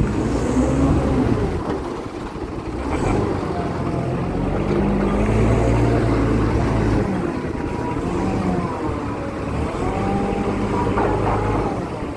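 Forklift engine running, its pitch rising and falling as the revs change.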